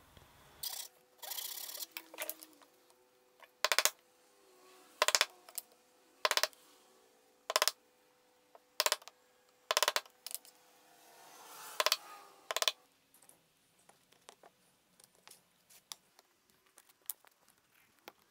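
A wood chisel being struck, about eight sharp blows roughly a second apart, chopping a small recess out of a block of wood; lighter clicks of handling follow near the end.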